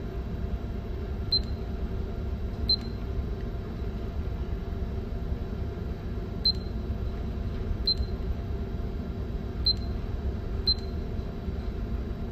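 Six short, high beeps from a Furuno ECDIS console as the arrow buttons of its Local Time Adjust box are clicked to step the clock, spaced one to four seconds apart, over a steady low drone.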